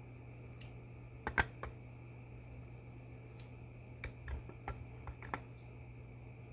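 Scattered light clicks and taps, the loudest about one and a half seconds in and a quicker cluster near the end, as butterfly knives (balisongs) are handled and set into a desk pencil stand.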